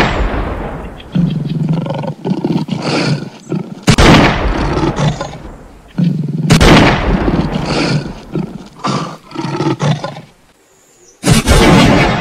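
Lions growling and roaring in a scuffle, in loud sudden outbursts that come four times and die away between, the same growl pattern repeating.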